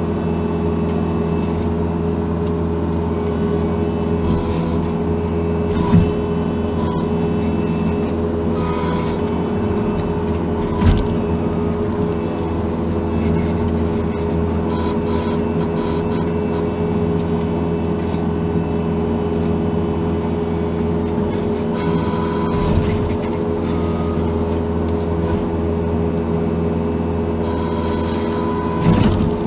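Case TV450 compact track loader's diesel engine running steadily under load, heard from inside the cab, with a higher hydraulic-sounding whine coming and going. Occasional short clunks sound about 6 and 11 seconds in and again near the end.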